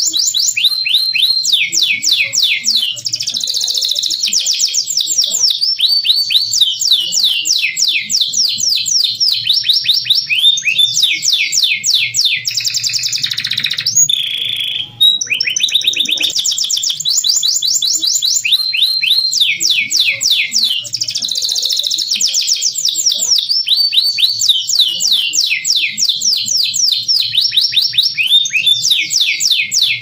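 Domestic canary singing a continuous song of fast trills, high notes sweeping downward many times a second, with a brief break about halfway through.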